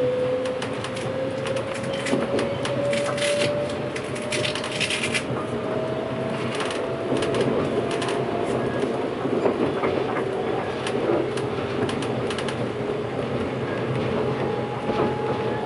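Inside a 583-series train's motor car: the traction motors whine, rising steadily in pitch for the first half as the train gathers speed, over the rumble of the running gear. Scattered clicks of the wheels run over rail joints.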